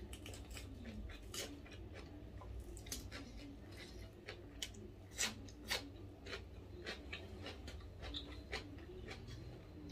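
A person chewing and crunching food close to the microphone: irregular sharp crunches and mouth smacks, a few louder than the rest.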